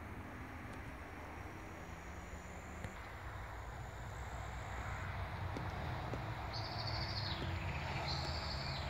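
Insects trilling steadily at a high pitch, with two short high calls about a second apart near the end, over a low rumble.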